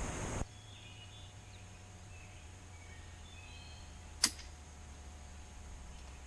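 A single sharp .22 LR rifle shot from a Savage A22 semi-automatic about four seconds in, with birds chirping faintly. A loud hiss of noise cuts off suddenly about half a second in.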